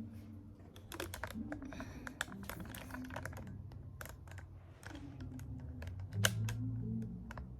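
Irregular light clicks and taps, with a sharper click about six seconds in.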